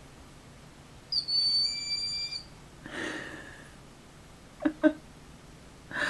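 A recorded bird call played back: a high, steady whistled note lasting about a second and a half, followed by a fainter, rougher sound and two short, softer sounds near the end.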